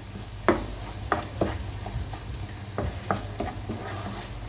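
A utensil stirring and scraping a pan of simmering tomato-onion masala gravy with cashew powder mixed in, in short strokes about two a second, over a light sizzle and a steady low hum.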